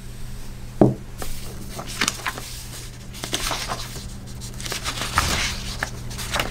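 Scattered light clicks and taps with soft rustling from handling a rotary cutter, acrylic quilting ruler and paper pattern sheet on a cutting mat. A sharper tap comes about a second in. A steady low hum runs underneath.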